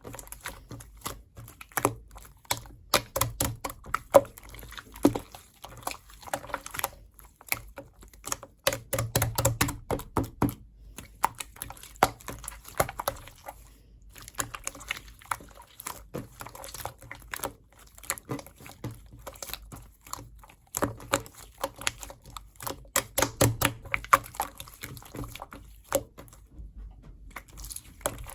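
Slime being squished and poked by hand: a fast, irregular run of small wet clicks and pops, broken by a few short pauses.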